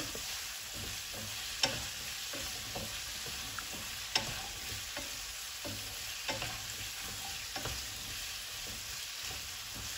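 Chopped onion, bell peppers and spring onion sizzling as they are sautéed and stirred in hot oil in a pan, with a steady frying hiss and a few sharp taps or scrapes, the clearest about one and a half and four seconds in.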